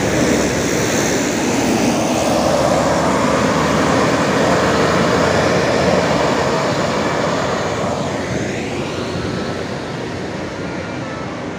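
Tour bus driving past up the slope, its diesel engine running loud, with a brief falling-then-rising sweep in pitch about eight seconds in and the sound fading toward the end.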